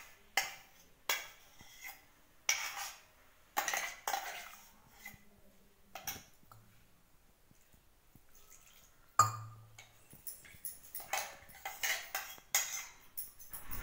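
A steel spoon scraping and knocking thick ground chutney out of a stainless steel mixer-grinder jar: a run of sharp metallic scrapes and knocks, about one every half second to a second. They pause for a few seconds in the middle, then a loud knock comes and the scraping resumes.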